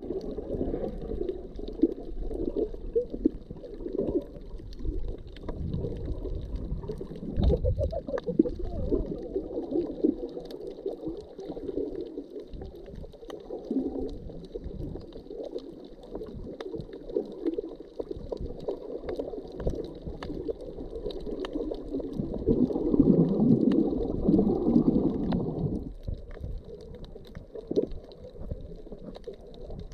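Underwater sound from a camera held below the surface on a shallow reef: muffled, gurgling water movement with faint scattered clicks. It swells louder a little over three quarters of the way through, then drops off sharply.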